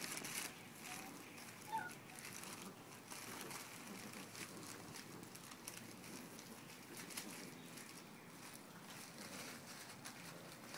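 Faint scuffling of Redbone Coonhound puppies tugging at a rag on concrete: paws pattering, scattered small clicks and the rag rustling, with one brief high squeak about two seconds in.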